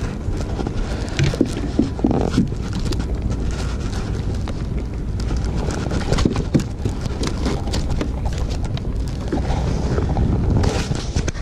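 Scattered knocks and clicks of a small snapper being handled and unhooked aboard a plastic kayak, over steady wind noise on the microphone.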